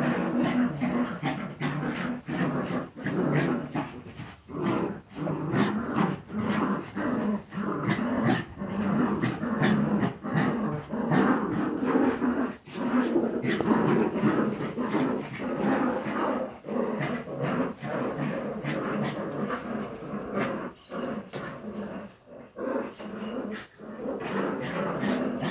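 A litter of Jagdterrier puppies growling in play as they wrestle and tug over a rag, a near-continuous, rising-and-falling growl broken by many short sharp sounds.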